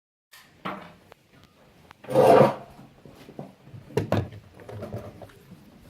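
Handling noises: scattered clicks, knocks and rubbing of wood and metal, typical of a rifle being handled and readied. There is a louder rustle about two seconds in and two sharp clicks about four seconds in.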